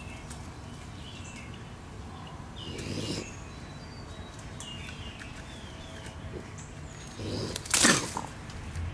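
Small birds chirping now and then in the background. Near the end a loud, short burst of noise as a trapped raccoon lunges inside a wire live trap.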